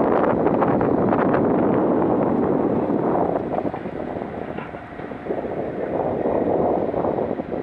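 Wind buffeting the microphone: a rough rushing noise that rises and falls in gusts, easing off about four seconds in and picking up again a second or so later.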